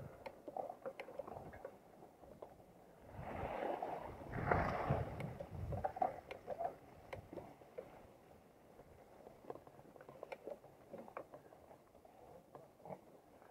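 Mountain bike rolling over a leaf-covered dirt trail: tyres rustling and crunching through dry leaves, with frequent small clicks and rattles from the bike over bumps, and a louder rush of rustling about three to five seconds in.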